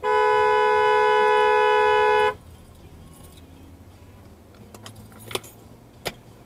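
Two-tone car horn held in one steady blast of a little over two seconds, a warning honk at a vehicle towing a boat trailer across the road ahead. After it, low road noise and two brief clicks.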